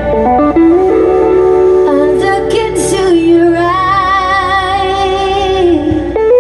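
Live band playing amplified electric guitar, bass guitar and drums, with a lead vocal. In the second half a long note is held with a wavering vibrato.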